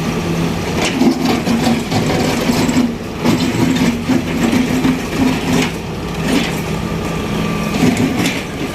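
Daewoo Solar 130W-III wheeled excavator's diesel engine running steadily, with irregular knocks and clanks over it.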